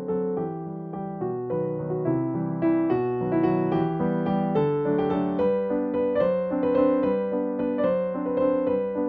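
Background music: a keyboard melody played over chords.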